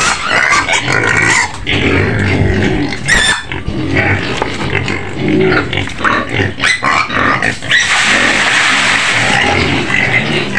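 A group of young white pigs squealing loudly and without a break, the cries getting denser near the end: piglets clamoring for feed.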